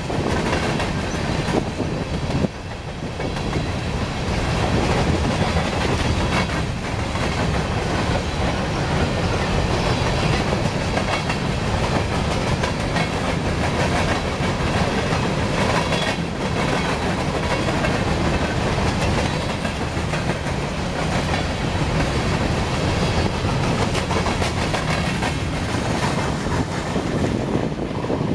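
Empty coal hopper cars of a CSX train rolling past close by: steel wheels running over the rails with a steady rumble and a stream of clicks from the wheels passing over the rail joints.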